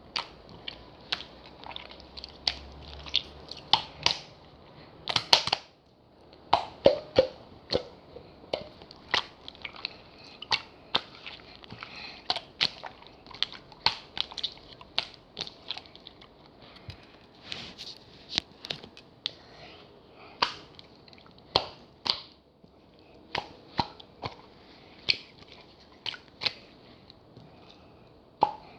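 Cheese jelly slime being squeezed and pressed by hand, giving off irregular sticky pops and clicks, one to three a second.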